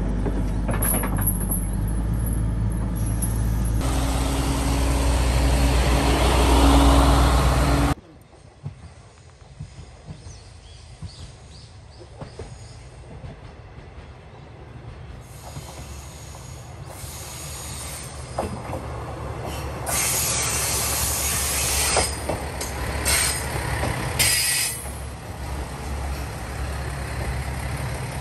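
Hitachi excavator with a mulcher head running loud, its engine steady and the noise building over the last few seconds before it cuts off suddenly. Then a two-car JR diesel railcar approaches and pulls into a station, growing louder, with sharp wheel and brake squeals as it slows.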